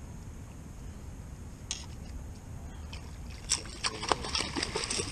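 Rattling and clicking of gear being handled on a small boat: a low steady rumble, one sharp click near two seconds in, then from about three and a half seconds in a quick, growing run of sharp clicks and rattles.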